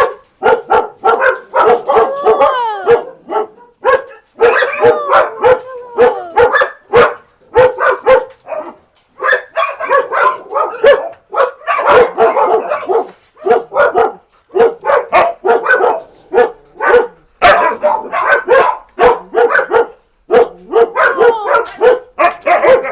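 Dogs barking rapidly and almost without pause, with yips and a few howling calls that rise and fall in pitch.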